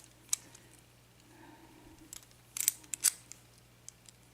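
Sharp metallic clicks from a small ABUS 7230 padlock and lock picks being handled, with one click just after the start and a cluster of several clicks about two and a half to three seconds in.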